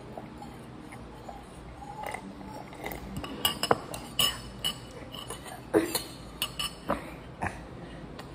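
Metal spoon clinking against a ceramic cereal bowl: a string of sharp clinks with a short ring, starting about three seconds in and stopping shortly before the end.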